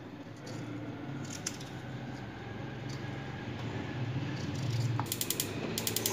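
A knife cutting raw potato into cubes in a bowl of water, a few soft ticks. About five seconds in, a gas stove's spark igniter clicks rapidly as the burner is being lit.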